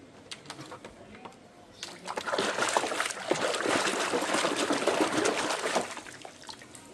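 Water splashing and running over toy cars as they are washed, for about four seconds from two seconds in, with small drips and clicks before and after.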